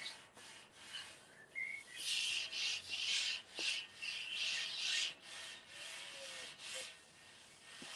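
A scouring pad on a handle rubbing corn oil over the round flat-top cooking plate of a gas outdoor grill, to season it. It goes in quick back-and-forth scrubbing strokes, loudest from about two seconds in to five seconds in, then fainter.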